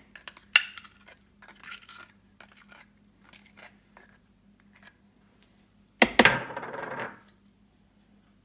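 A metal spoon scraping and tapping soft butter into a plastic food processor bowl: light clicks and scrapes, then a louder scraping clatter about six seconds in that fades over about a second.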